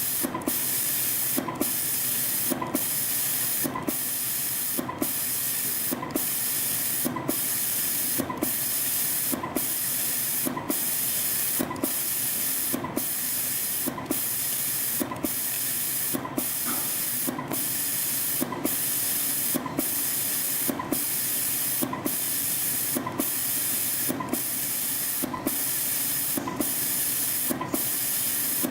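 CNC spring coiling machine forming tiny springs from 0.2 mm wire: a steady high hiss that drops out briefly a little less than once a second, each time with a short knock, in an even machine rhythm.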